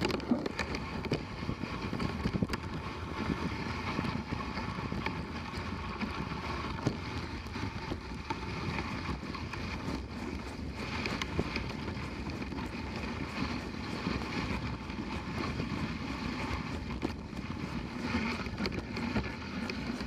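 Dog sled gliding over packed snow: the runners hiss and scrape steadily, with frequent small knocks and rattles from the sled, and wind buffeting the microphone.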